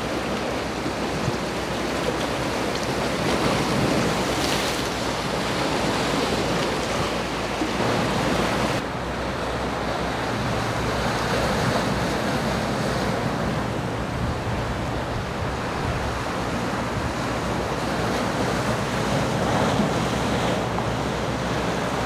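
Steady rush of wind and waves on an open shore, with wind buffeting the microphone; the hiss turns duller abruptly about nine seconds in.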